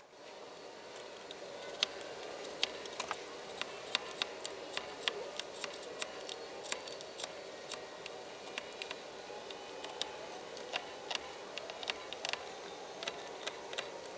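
A marking knife scratching along pine as the dovetail pins are scribed around the tails. It gives many irregular sharp ticks over a faint steady hiss.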